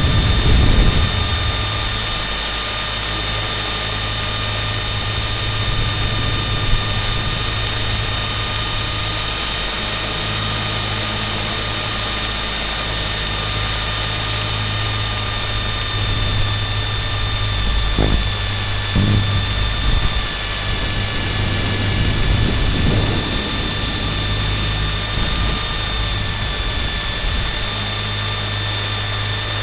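Align T-Rex 450 SE V2 electric RC helicopter running, heard up close from its landing skid: a steady high whine from the brushless motor and gears over a low steady rotor hum. The whine's pitch dips slightly about twenty seconds in, and a few low thumps come around eighteen seconds in.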